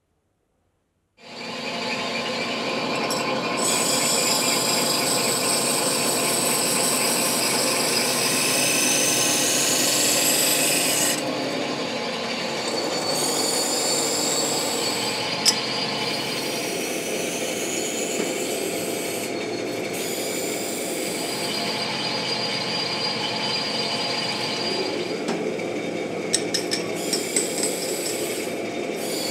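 Workshop machining noise as steel engine sleeves are worked: a steady scraping with high whines that rise in pitch again and again. It grows somewhat quieter about ten seconds in, with one sharp click a few seconds later and a few ticks near the end.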